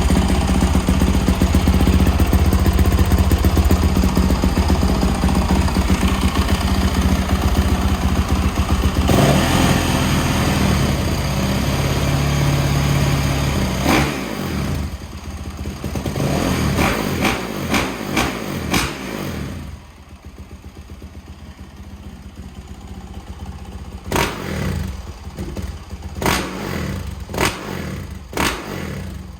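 Yamaha YZ450F dirt bike's single-cylinder four-stroke engine running, loud and steady at first, then revved with a series of short throttle blips through the second half.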